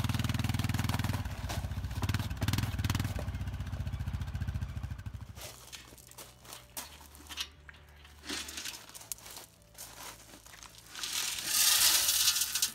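An ATV engine runs steadily for about five seconds. Then come scattered metallic clicks as the tailgate latch of a galvanised steel trailer is worked. Near the end comes the loudest sound: crushed gravel rushing and rattling out as the tailgate drops open.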